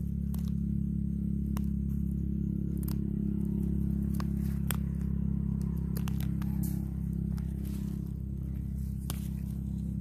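A steady low hum, with scattered sharp clicks and crackles of dry leaf litter being handled and stepped on while mushrooms are picked.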